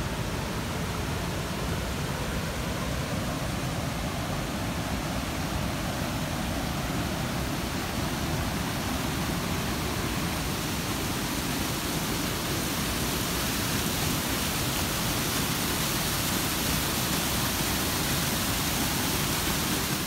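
Steady rushing of several 8-to-10-foot waterfalls and the whitewater below them, water pouring over ledges cut into fresh river sediment.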